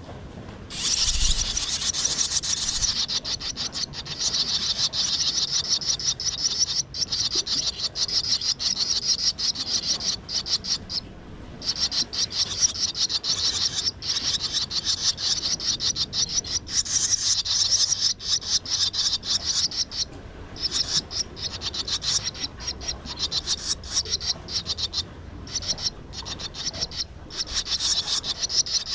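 Swallows calling at the nest: a dense, fast run of high, rasping chirps that starts about a second in and carries on with a few short breaks.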